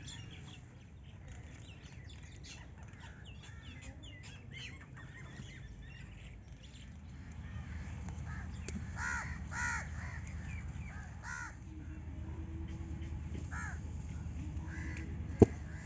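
Crows cawing repeatedly from about eight seconds in, over faint chirping of small birds and a low steady rumble. A single sharp click near the end.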